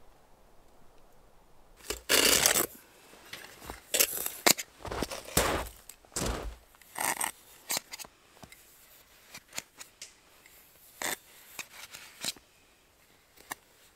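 Dry snow crunching and scraping as a small pot is scooped and pushed through deep snow, in a series of short irregular scrapes starting about two seconds in and thinning out near the end.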